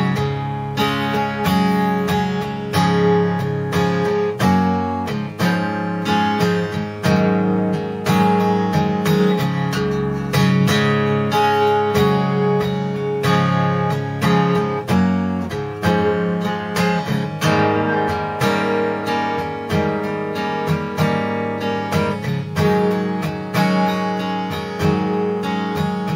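Six-string acoustic guitar in an open tuning, strummed steadily through a chord progression, with the open strings ringing under the fretted chord shapes.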